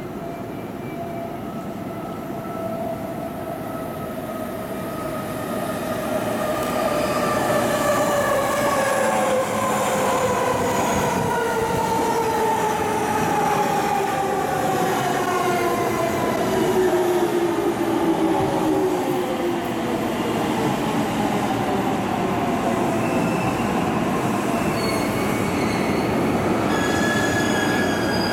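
JR Yamanote Line E231-500 series electric train pulling into the platform and braking. Its motor whine falls steadily in pitch as it slows, over wheel and rail noise, and grows louder as the cars draw close. Higher wheel squeal comes in near the end as it comes to a stop.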